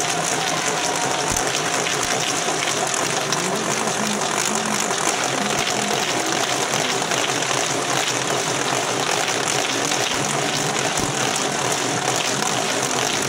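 Steady hubbub of a large outdoor crowd, many voices talking at once.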